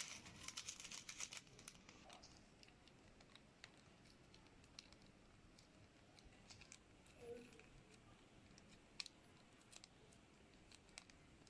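Faint crinkling of a foil seasoning sachet being squeezed out by hand, densest in the first second and a half, then only scattered soft ticks and rustles.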